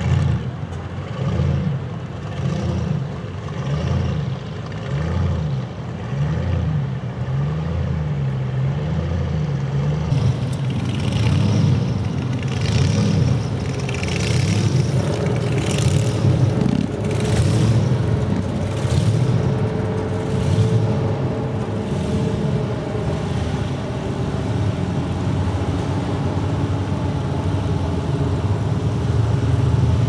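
Engines of hot rods and classic cars rumbling as they cruise slowly past. From about ten seconds in there is a series of short revs about every second and a half.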